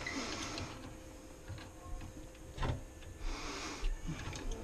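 Hands working metal parts of a gas stove's valve assembly: scattered light clicks and taps with bouts of scraping and rustling as the valve and its gas line are lined up on the manifold.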